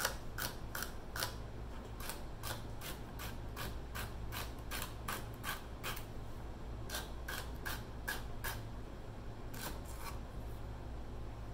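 Chef's knife chopping a celery stalk on a wooden chopping block: a steady run of crisp cuts, about three a second, with two short pauses partway through.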